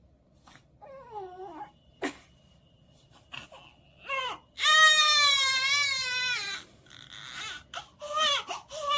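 Baby crying after waking upset from sleep: short fussy whimpers, then one long loud high wail about halfway through, then more whimpering; the baby is not yet soothed. A sharp click about two seconds in.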